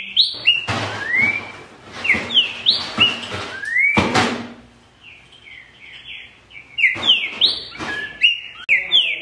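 Green-winged saltator (trinca-ferro) singing loud phrases of short, rising whistled notes. It pauses briefly about halfway through, then starts again. A soft thump comes about four seconds in.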